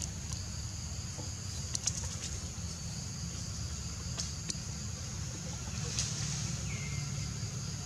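Steady outdoor background of a low rumble and a high hiss, with a few faint clicks and one short chirp about seven seconds in.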